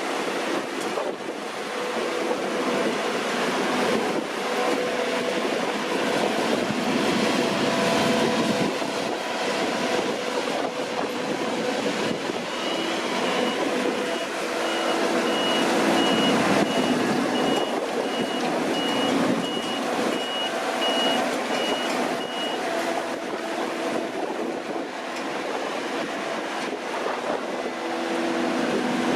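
Deutz-Fahr C9306TS combine harvester running at work, a steady mechanical drone with several whining tones from its engine and threshing gear. In the middle a high-pitched reversing alarm beeps over and over for about ten seconds.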